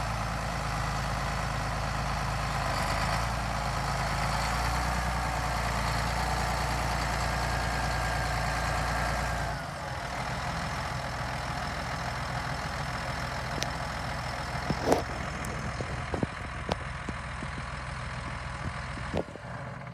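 Large John Deere row-crop tractor's diesel engine running steadily as the tractor creeps along. About ten seconds in, the deep low note drops away and the engine sounds lighter. A few sharp clicks follow, the loudest a single knock near three-quarters of the way through.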